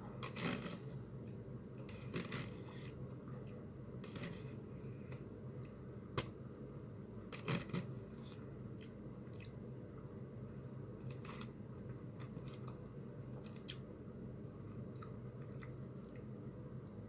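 Close-miked mukbang eating of a cheeseburger omelet: chewing and mouth sounds with scattered sharp clicks, the loudest a single click about six seconds in and a pair soon after, over a steady low hum.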